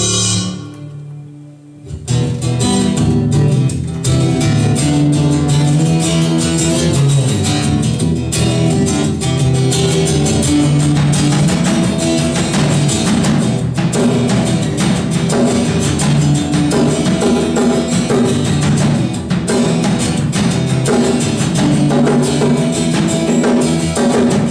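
Live band playing an instrumental intro: strummed guitar with a drum kit, coming in about two seconds in after a held tone fades out.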